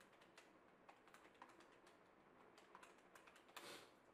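Faint, irregular clicks of calculator keys being pressed, a few a second, with a short scratchy rustle just before the end.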